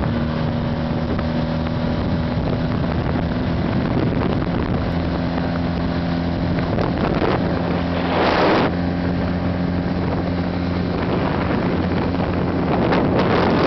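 1979 Honda CB400T's parallel-twin engine running steadily at cruising speed, heard under wind buffeting the microphone. There is a brief loud gust about eight seconds in, and the wind noise grows near the end.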